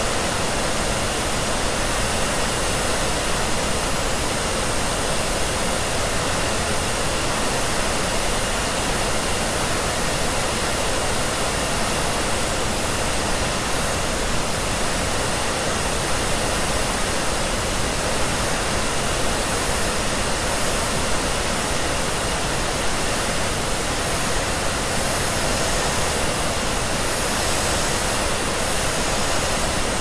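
Hair dryer blowing steadily, blended with pink noise into a constant, even hiss that does not change.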